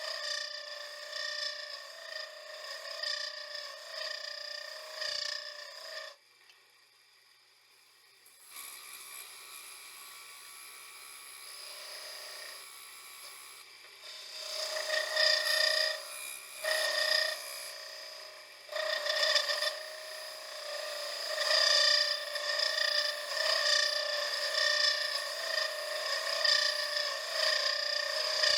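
An improvised hand tool, not a proper turning gouge, scraping a spinning piece of wood on a wood lathe, a scraping sound with a steady pitched ring in it. It breaks off about six seconds in, comes back softer, and grows louder again from about halfway through.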